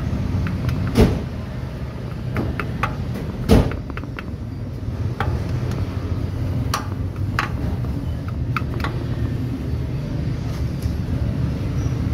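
Sharp metal knocks, two loud ones a couple of seconds apart and then several lighter taps, as a new rear crankshaft oil seal is tapped into place in a 1NR-FE engine block, over a steady low rumble.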